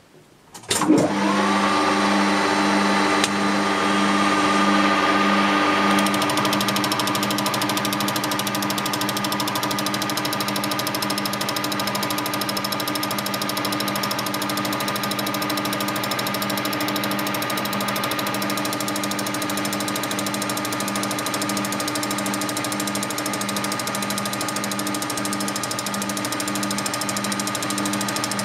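Metalworking lathe starting about a second in and quickly running up to speed, then running steadily with a hum that pulses about twice a second, turning down a steel drilling jig held in a four-jaw chuck. From about six seconds in, the hiss of the turning tool cutting is added.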